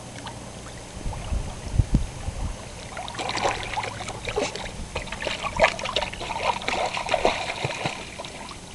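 Water splashing irregularly as a flat-coated retriever puppy wades and paddles, the splashes starting about three seconds in and going on busily. A few low thumps come before them.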